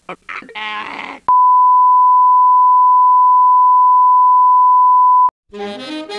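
Broadcast test tone of the kind played with colour bars: one loud, steady beep lasting about four seconds that cuts off abruptly. It is preceded by a short vocal sound, and music starts just before the end.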